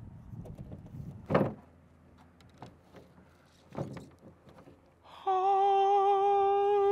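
Two light knocks, then a loud, steady hum at one pitch that starts abruptly about five seconds in.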